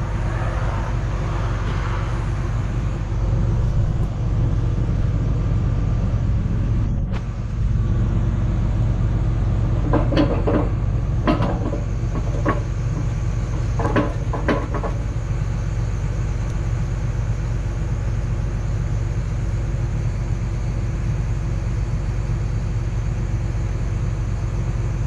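John Deere excavator's diesel engine idling steadily. About ten seconds in come several short metallic knocks with a brief ring.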